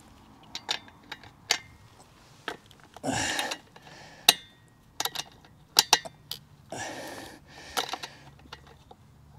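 Sharp clicks and clinks of hand tools and parts being worked on a petrol strimmer's engine, irregular and scattered, with three short hissing rushes in between.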